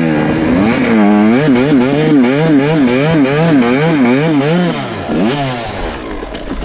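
Yamaha YZ125 two-stroke dirt bike engine revving up and down about twice a second in an even rhythm, then dropping off about five seconds in after one last short rev.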